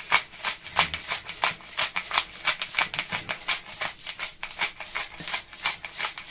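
Black peppercorn grinder bottle being twisted by hand, its built-in grinder cranking out rapid, regular grinding clicks at about five a second.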